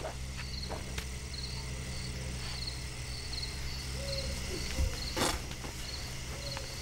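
Crickets chirping at night in evenly repeated short chirps over a steady low hum. A sudden sharp sound cuts through about five seconds in.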